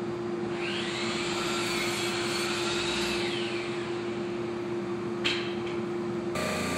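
CNC router running, its spindle and dust-extraction suction giving a steady vacuum-like noise over a constant hum. A higher whine rises about half a second in and drops away around three seconds, with a short click about five seconds in.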